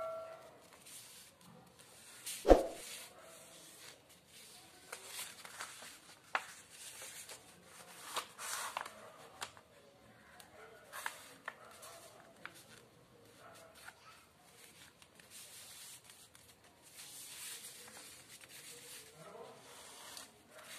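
A sheet of origami paper being folded and creased by hand: intermittent soft rustles and rubbing scrapes of paper sliding on a table. One sharp knock about two and a half seconds in.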